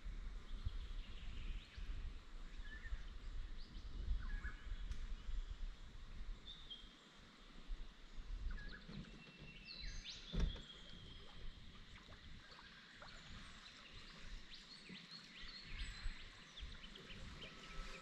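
Bush birds calling with scattered short chirps and whistles, over a low, gusting rumble. A single sharp knock about ten seconds in.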